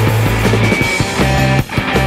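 Background instrumental music with a heavy bass line; the bass note changes about a second in.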